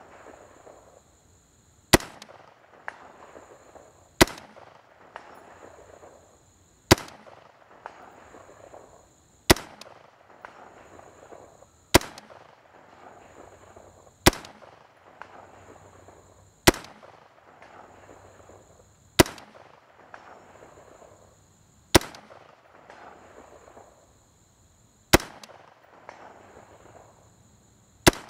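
An M4 carbine in 5.56 mm fired in slow, aimed single shots: eleven sharp cracks spaced about two to three seconds apart, each followed by a short echo.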